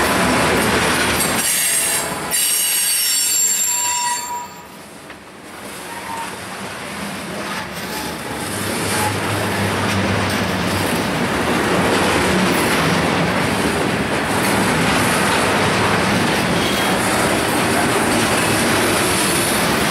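Freight cars of a Norfolk Southern train rolling past close by: steady wheel-on-rail noise, with high wheel squeal in the first few seconds. The noise dips briefly about five seconds in, then builds back up and holds.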